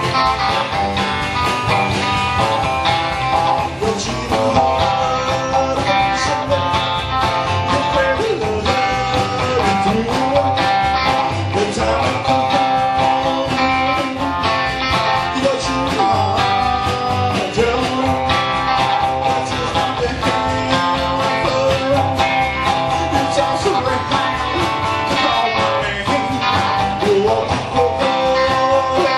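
Live rockabilly band playing: a Gretsch hollow-body electric guitar over acoustic rhythm guitar, upright bass and drums.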